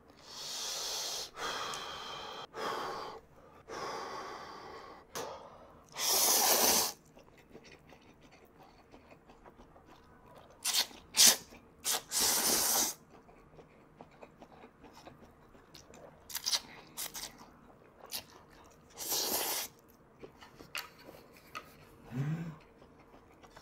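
A person slurping instant ramen noodles, a series of noisy slurps each up to about a second long, with quiet pauses between them.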